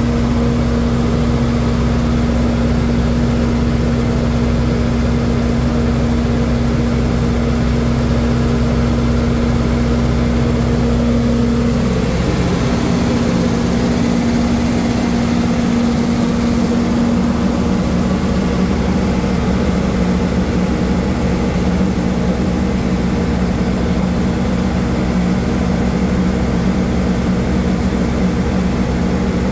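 A ship's engine runs with a loud, steady drone. Its hum drops a little in pitch about twelve seconds in.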